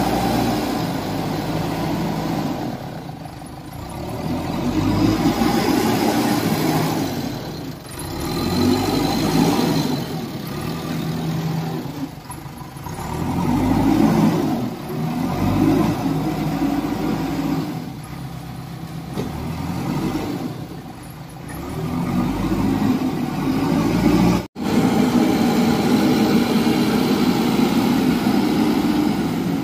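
Diesel engine of a JCB 3DX backhoe loader working, its revs rising and falling every few seconds as the machine drives and pushes soil with its front loader bucket.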